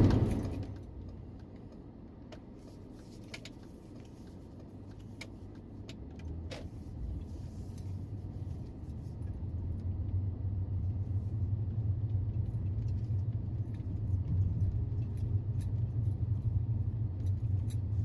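Low car engine and road rumble heard from inside the cabin as the car pulls away, building up after a few seconds and then holding steady, with light scattered clicks and rattles.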